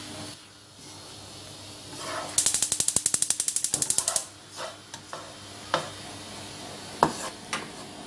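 Wooden spatula stirring and scraping egg and vegetables in a nonstick frying pan: a fast, rattling run of strokes about two to four seconds in, then a few single knocks of the spatula against the pan.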